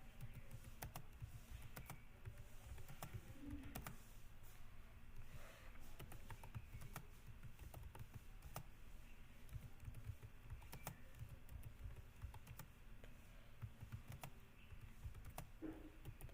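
Typing on a computer keyboard: an uneven, continuous run of faint key clicks.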